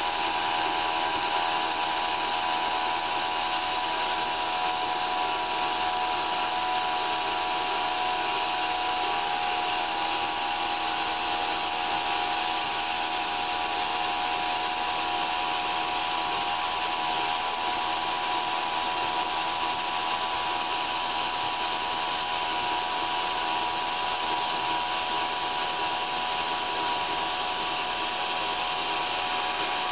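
Homemade sawmill running steadily as it cuts a cherry log: a constant machine whine that holds the same pitch throughout.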